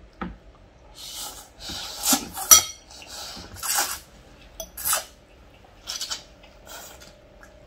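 Instant pancit canton noodles slurped several times by two people, with a couple of sharp clinks of metal forks against glass bowls.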